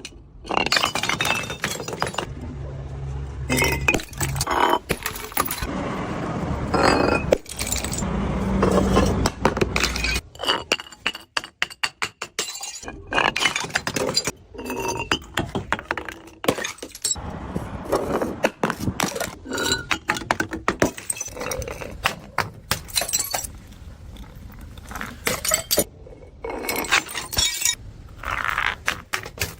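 Glass bottles repeatedly smashing and shattering, with broken shards clinking and scattering between the breaks.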